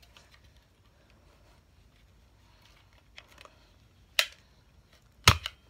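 Plastic parts of a Nerf blaster being handled and worked loose: a few faint ticks, then a sharp click about four seconds in and a louder click just past five seconds.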